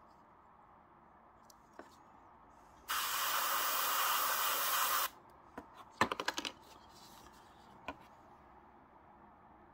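Fengda starter-kit airbrush spraying paint: a steady hiss of air and paint about two seconds long, starting about three seconds in and cutting off sharply. About a second later comes a quick run of small clicks.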